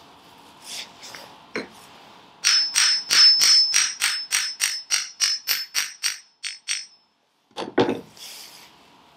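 A quick run of about twenty metal-on-metal strikes, four or five a second, with the steel generator body ringing like a bell through them. The strikes fade towards the end and are followed by a couple of duller knocks. This is the work of freeing a field-coil pole shoe from the dynamo body.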